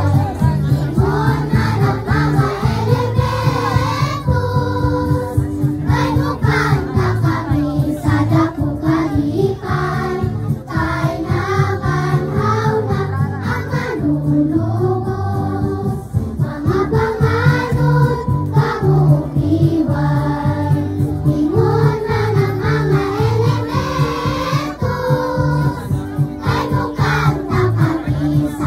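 A choir singing an Easter hymn with instrumental accompaniment, the melody carried continuously over a steady low bass line.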